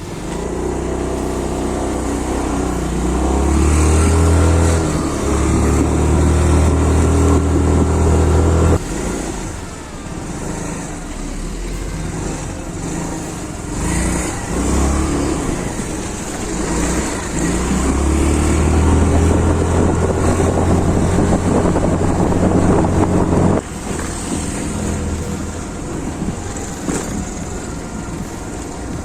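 Yamaha Ray ZR scooter engine running under throttle while riding, with wind and road hiss on the microphone. The engine note drops suddenly about nine seconds in and again about three-quarters of the way through.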